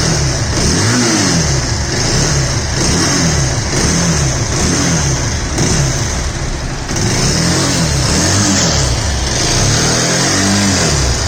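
Bajaj Pulsar 220F's single-cylinder engine revved in repeated throttle blips, rising and falling about once a second. Its exhaust note is bad: the engine needs its internal gear and timing set to bring the sound right.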